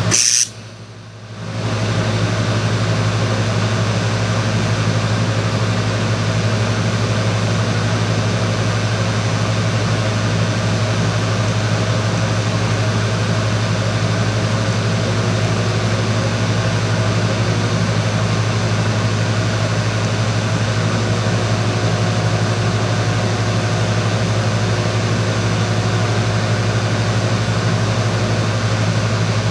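Arc welding: a steady buzzing hum with hiss from the welder and arc. It briefly drops out about half a second in, then carries on unchanged.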